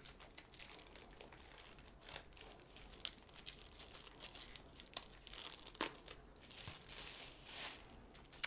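A thin white wrapper crinkling and crumpling as it is pulled off a rolled diamond-painting canvas. Soft continuous crackling runs through it, with a few sharper snaps about three, five and six seconds in.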